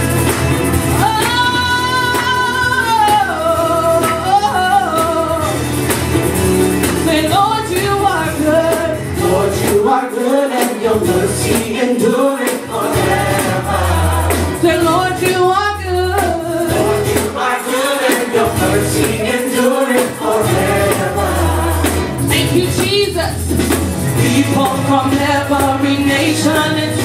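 Gospel worship music: a singing voice holds long, wavering notes over a band with a bass line.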